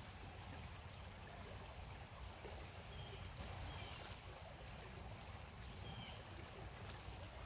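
Faint outdoor ambience: a steady low rush with a thin steady high whine, and four short, faint high chirps scattered through it.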